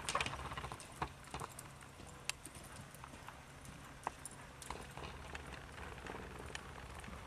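Hoofbeats of a Quarter Horse–Paint gelding loping on soft arena dirt: irregular muffled thuds and clicks, loudest in the first second, over a low steady hum.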